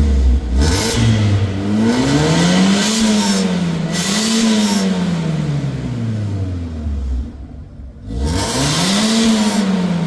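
Alfa Romeo GT engine revving, its pitch climbing and falling back three times, with a short lull just before the last rise near the end.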